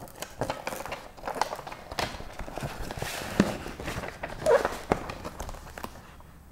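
Paper release backing being peeled off a foam traction mat and rustling, with irregular taps and knocks as the mat is handled and laid onto the jet ski's swim platform.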